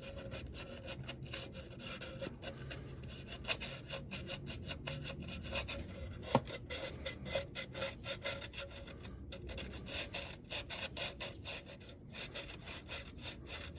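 Rapid hand rubbing and scraping strokes, several a second, with one sharper click about six seconds in. The sound comes from cleaning old gasket residue off the thermostat housing's mating surface on a 1995 Nissan D21 engine.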